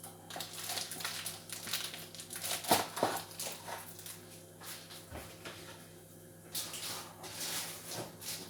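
Kitchen clatter: a string of light clicks and knocks of utensils and dishes being handled, loudest about three seconds in.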